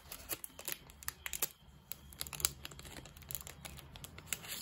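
Clear plastic sleeve crinkling as it is handled and opened by gloved hands to slide out a polymer banknote. A quick run of sharp crackles comes in the first second and a half, then a few scattered ones.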